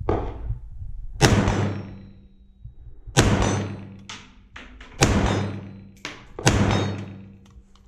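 SKS semi-automatic rifle firing four shots, spaced about one and a half to two seconds apart. Each sharp report trails off in an echo, and there are a few light clicks between the shots.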